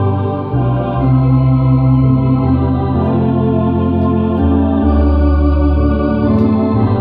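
Tokai MD-750 electronic organ playing a hymn in held chords, with the bass note changing every second or two.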